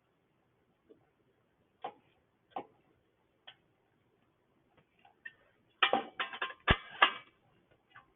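Sharp metallic clicks of a hand tool working a bolt on a small engine's exhaust heat-shield cover: a few single clicks a second or so apart, then a quick run of rattling clicks with one sharp knock near the end.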